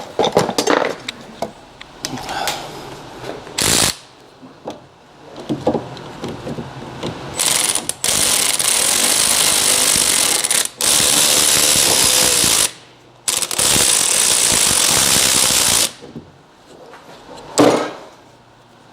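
Power wrench spinning a 17 mm socket on the brake hardware bolts in three runs of two to three seconds each, with a high whine. Clanks and clicks of tools and metal parts come before it.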